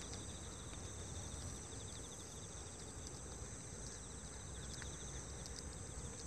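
Insects trilling steadily in the grass: a high continuous chorus with a fast pulsing trill beneath it, over a low rumble.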